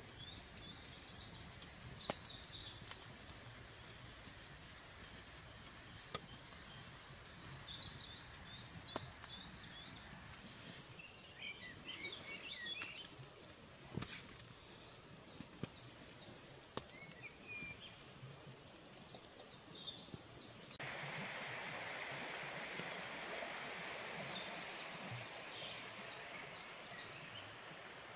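Woodland birds chirping and trilling over quiet outdoor background noise, with a few sharp clicks. About two-thirds of the way through, a steady rushing hiss sets in suddenly.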